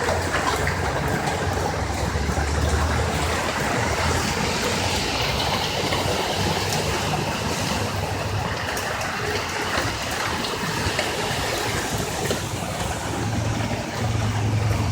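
Vehicles driving through a flooded street: a steady rush of water from tyres ploughing through it, over a low engine hum that comes and goes and grows louder near the end.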